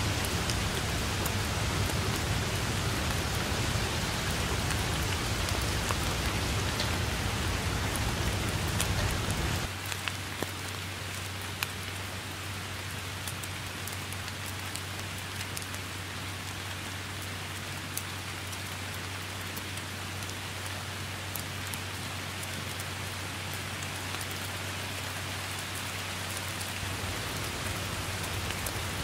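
Steady rain falling on grass and leaves, with scattered close drops ticking sharply. A low rumble under the rain cuts off abruptly about a third of the way in, leaving the rain a little quieter.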